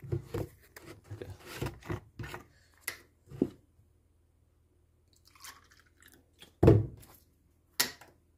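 Plastic cup and jug handled on a kitchen counter: a string of small knocks and rustles, then two loud sharp knocks near the end.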